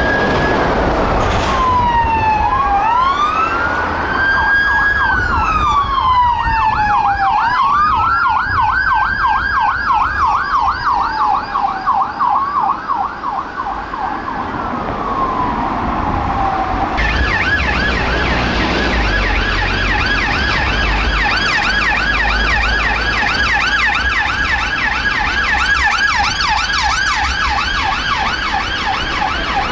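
UK police car sirens: two Peugeot 308 response cars' sirens sound together, slow rising-and-falling wails overlapping, switching for a few seconds to a quicker yelp. About 17 seconds in, the sound cuts to a Kia Sportage's siren on a steady, rapid yelp, with traffic rumble underneath.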